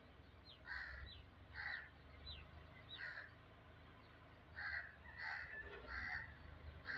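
A bird calling repeatedly: about seven short calls, a few at a time, with fainter high falling chirps in the first three seconds.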